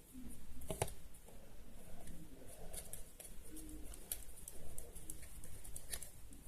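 Scattered light clicks and scraping from hand work with a pressed eyeshadow pan and a container of glue, as the last of the eyeshadow is dug out for slime; the sharpest click comes about a second in.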